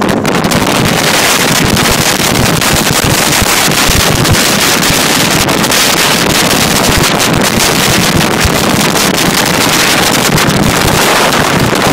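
Loud, steady wind buffeting the microphone while riding in an open hot rod at road speed, with the hot rod's engine running underneath.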